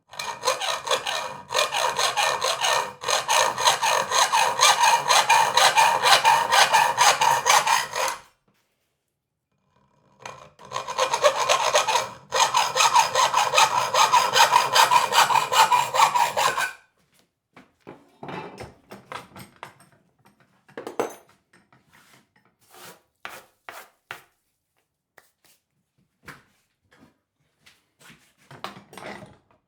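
Hand saw cutting through wood in two spells of steady back-and-forth strokes, the second starting after a short pause. Near the end come scattered light knocks and taps of wood being handled.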